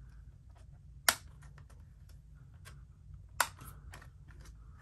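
Small clicks and taps of fingers working the retaining pins and plastic body panel of a 1/10-scale RC rock crawler, with two sharp, louder clicks about a second in and past the three-second mark.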